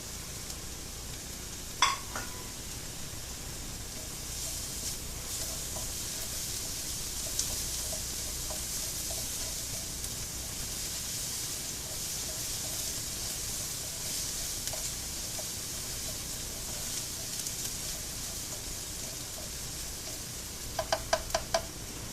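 Onion and garlic sizzling in hot oil in a pan while being stirred. A single sharp clink of a utensil on the pan comes about two seconds in, and a quick run of about five clinks near the end.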